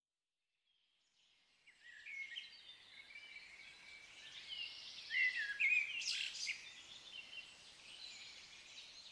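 Birdsong fading in from silence: many short chirps and quick whistled glides over a faint outdoor hiss, loudest around the middle.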